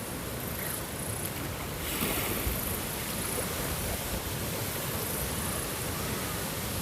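Steady rush of water, swelling louder about two seconds in, like a wave breaking.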